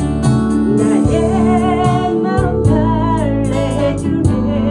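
A woman singing a wavering melody over a strummed steel-string acoustic guitar, the strums coming in an even rhythm.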